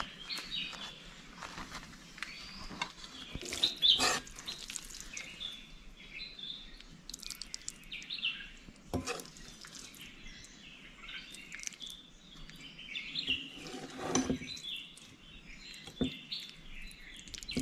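Birds chirping, with a few sharp clinks and scrapes of a steel ladle against a steel pan and a clay bowl, the loudest about four seconds in and again near fourteen seconds.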